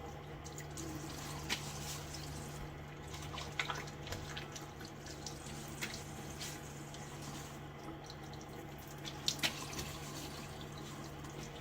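Faucet running steadily into a sink during a rinse between shaving passes, with a few sharper splashes.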